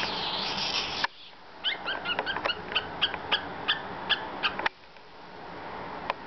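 Cockatiel chattering in a quick run of about a dozen short, sliding whistled chirps, high-pitched, starting after about a second and a half and stopping near the five-second mark.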